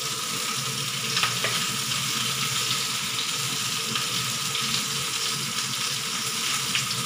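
Pot of chicken soup boiling on a stove burner: a steady bubbling hiss with small pops now and then, over a faint steady hum.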